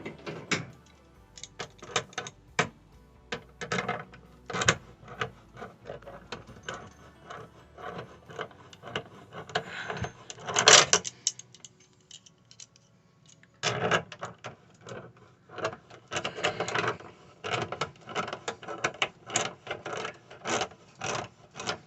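Irregular clicks, knocks and rubbing as a new washing-machine fill hose's coupling is handled and threaded onto the washer's water inlet, with a louder burst of rattling about ten seconds in.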